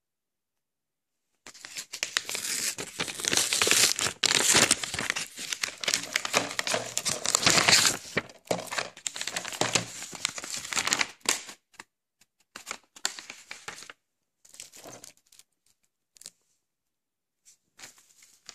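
Kraft-paper mailing envelope being torn open and rustled: loud tearing and crinkling starts about a second and a half in and goes on for about six seconds. Softer crinkles follow, then a few short, scattered paper rustles as the DVD is handled.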